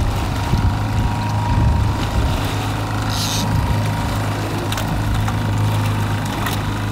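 Boat's outboard motor running steadily at trolling speed, a low even hum.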